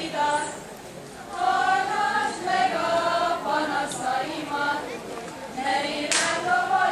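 Group of women singing a Hungarian folk song together, held notes in phrases with a brief pause between phrases about a second in.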